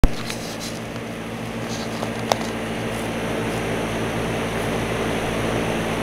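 American Standard heat pump outdoor unit running in heat mode: its three-blade fan and compressor give a steady hum under a rush of air. A sharp click at the very start, and a smaller one a little over two seconds in.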